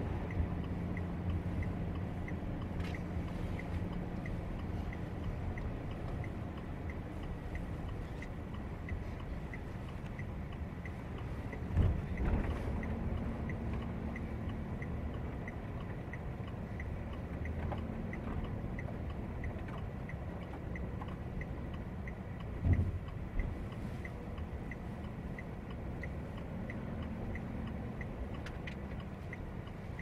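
A vehicle driving slowly on a snowy road, heard from inside the cab: a steady low rumble of engine and tyres, with an even ticking of about two a second from the flasher relay. Two short thumps come through, about twelve and about twenty-three seconds in.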